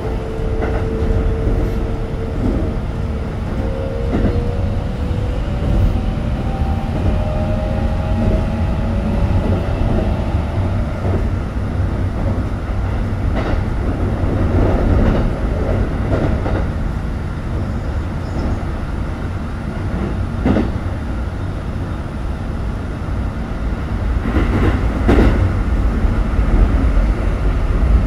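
Keikyu New 1000 series train's Siemens GTO VVVF inverter sounding its rising stepped 'doremifa' scale as the train accelerates, heard inside the car over the motor and wheel rumble. The scale ends about eleven seconds in, and the rest is steady running with occasional clacks of rail joints, getting louder near the end as the train gathers speed.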